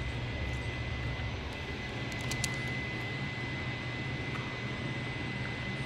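A steady mechanical drone with a low hum and a thin, constant high whine, with a few faint clicks a little over two seconds in.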